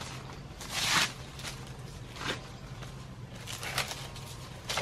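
Dry rustling and crackling of grass and banana leaves being brushed and stepped through, in a few short surges, the biggest about a second in, with a sharp click near the end.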